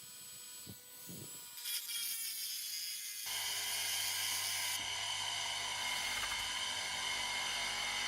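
A small electric power tool motor whirring. A fainter run with slightly falling pitch gives way about three seconds in to a sudden, louder, steady whir.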